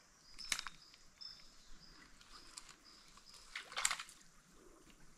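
Faint forest ambience by a creek: a high, thin call repeated in short even notes for the first three seconds or so, with two brief noisy swishes, about half a second in and about four seconds in.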